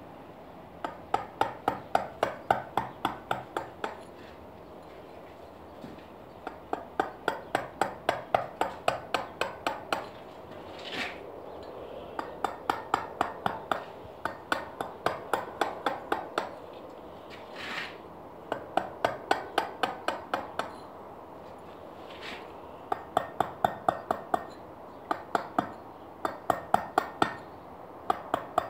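Round-headed mallet striking a tungsten carbide chisel into limestone, carving the stone. The sharp knocks come in six quick runs of about four a second, with short pauses between runs.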